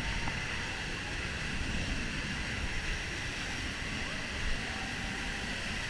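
Waterfall pouring steadily: a constant rush of falling water.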